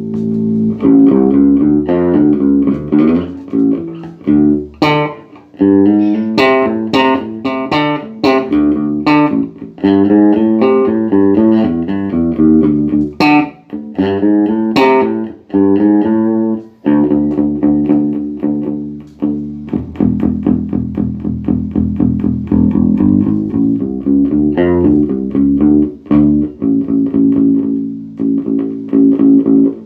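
Bass guitar played through a Peavey MaxBass 110 combo amp, a run of plucked notes and chords with sharp attacks, some notes held ringing: the amp sounding normally after repair of its power supply, preamp and class D chip.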